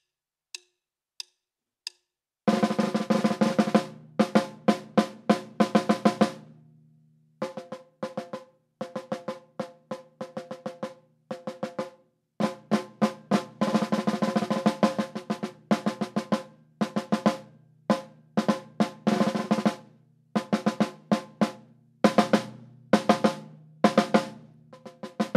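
Snare drum played with sticks in fast strokes and rolls, ringing, in phrases broken by short pauses about six and eleven seconds in. Three light clicks come before it starts.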